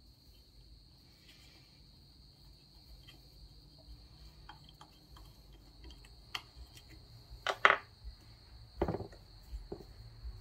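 Hand tools and metal parts clinking on a Peerless 206 transaxle as the shifter is unbolted: scattered light clicks, then a few louder metal clanks from about six seconds in, the loudest a little before eight seconds.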